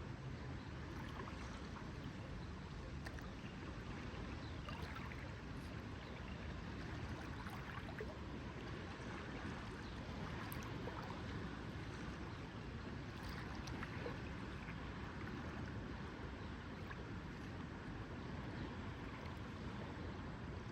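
Lake water lapping gently at the shore, a steady wash with faint small clicks and splashes now and then.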